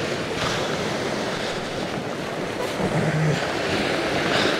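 Sea surf washing onto the beach, with wind buffeting the microphone; a short low hum about three seconds in.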